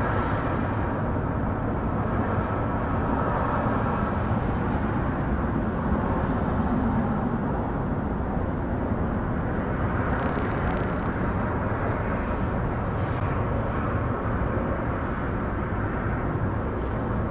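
Steady low rumble of outdoor background noise, like distant traffic, at an even level, with a brief faint hiss about ten seconds in.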